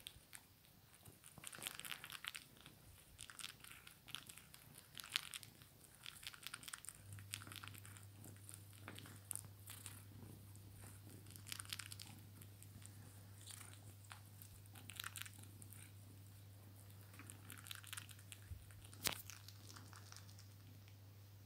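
Young tabby kitten suckling on a t-shirt: faint, irregular wet smacking and sucking clicks. A low steady hum joins about a third of the way in.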